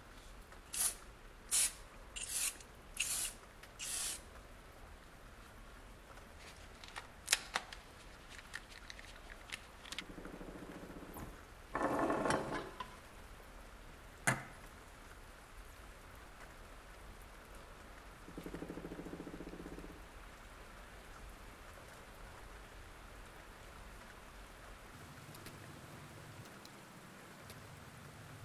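A series of short hissing squirts from an aerosol can of silicone spray, about one a second, as mould release is sprayed onto small silicone moulds. Later come a few sharp clicks and a brief rustling of handling noise.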